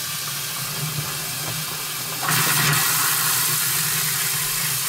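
RV bathroom faucet running hot-side water into a sink, a steady hiss of flowing water with a low hum under it, flushing the pink RV antifreeze out of the line as the stream clears. The flow gets louder about two seconds in.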